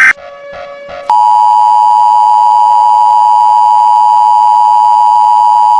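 Emergency Alert System attention signal: the steady, loud two-tone alarm (853 and 960 Hz sounded together) starts about a second in and holds without change. Just before it, a harsh burst of digital alert-header data cuts off at the very start.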